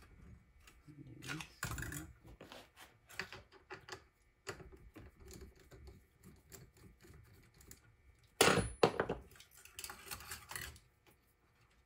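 Scattered clicks and clatter of small metal parts and tools as hands work the drill chuck, hose clamp and wire spool of a homemade coil-winding jig. The loudest is a sharp clatter about eight and a half seconds in, followed by a rattling stretch about ten seconds in.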